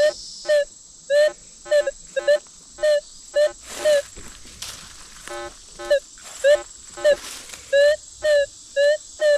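Minelab Manticore metal detector giving short pitched target beeps, about two a second, as the coil is swung back and forth over a shallow target, with one lower-pitched tone about halfway through. The response sounds weird and irregular, which the detectorist takes for possible falsing. Crickets or insects hum steadily in the background.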